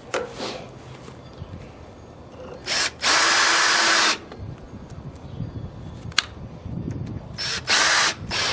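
Power drill running in bursts: a short pulse, then about a second of steady running, then two or three quick pulses near the end, as screws are driven in to mount the door hinges.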